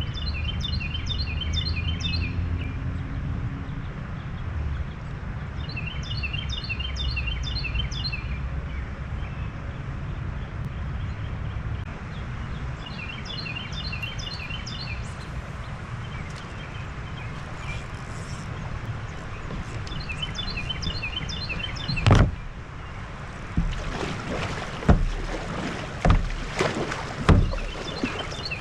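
A songbird repeats the same short trilled phrase about every seven seconds over a steady low rush, on a river. In the last few seconds come several sharp knocks.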